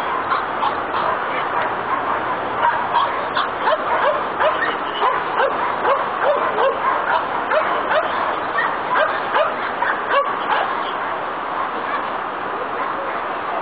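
Bouvier des Flandres barking in a rapid run, about two or three barks a second, which stops near the end.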